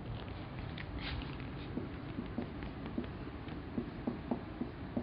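Marker pen tapping and stroking on a whiteboard as a number and a short word are written. It comes as a quick run of light ticks from about two seconds in, over a steady background hum.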